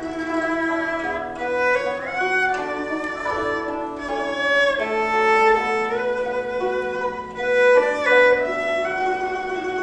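Erhu playing a bowed melody of held notes that slide from one pitch to the next, over plucked guzheng accompaniment.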